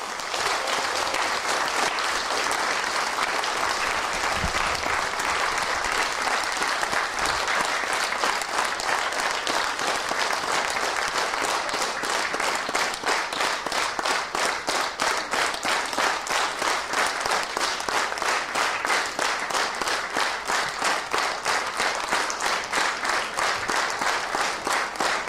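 Theatre audience applauding. About halfway through, the applause settles into rhythmic clapping in unison, about three claps a second.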